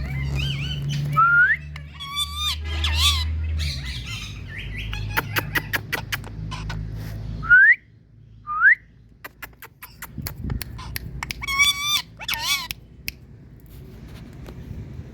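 Indian ringneck parrot calling in bursts of harsh squawks and short, sharply rising whistled calls; the two loudest rising calls come about a second apart near the middle. Runs of quick clicks sound between the calls, over a low hum in the first half.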